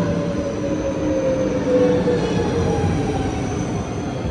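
NS double-deck electric train pulling into the platform, wheels rumbling on the rails, with a whine that falls steadily in pitch as the train slows.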